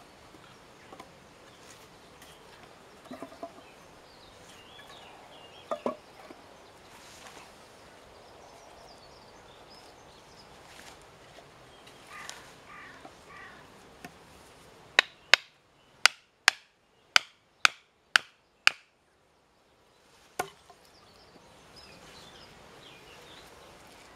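Hatchet striking green wood: a run of eight sharp knocks, about two a second, starting about fifteen seconds in, then one more a little later. Earlier come a few softer wooden clunks as the poles are handled.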